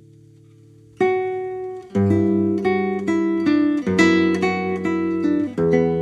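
Solo nylon-string classical guitar, a Kim Sang Gil instrument, playing: a held chord dies away, then about a second in a sharp plucked note starts a phrase of single notes and chords.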